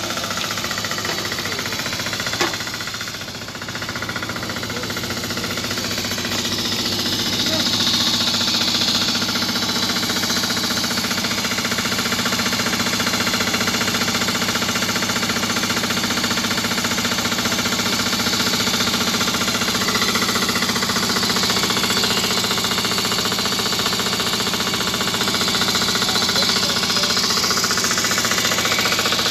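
Heavy machinery's engine running steadily and loudly, with a fast, even pulse. A single sharp click about two seconds in.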